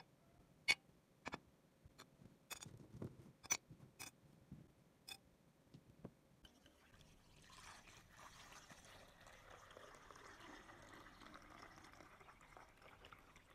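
Faint sharp clinks of rusty steel pistol parts being set down in a plastic basin, about eight in the first five seconds. From about six seconds in, a steady splashing hiss of acid solution being poured over the parts and filling the basin.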